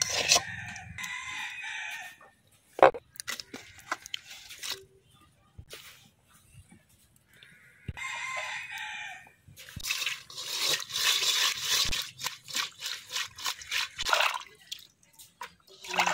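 A rooster crowing twice: once at the start and again about eight seconds in. It is followed by a few seconds of splashing and clatter.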